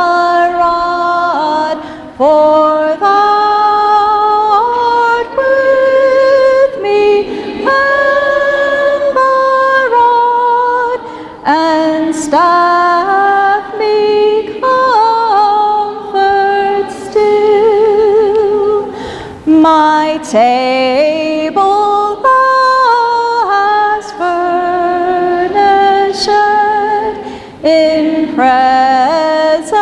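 A group of women singing a hymn a cappella, with no instruments, in long held notes with some vibrato.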